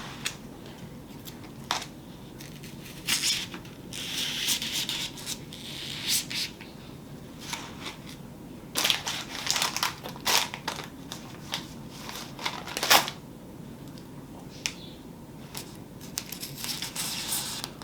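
Irregular crunching, crinkling and tearing handling noises in short bursts with pauses, from hands working on a broken styrofoam-based Christmas wreath and its cardboard reinforcement.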